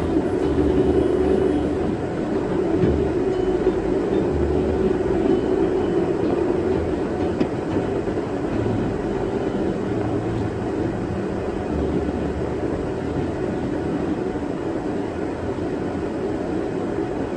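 Steady road noise inside a moving car: the low rumble of tyres and engine heard from the cabin.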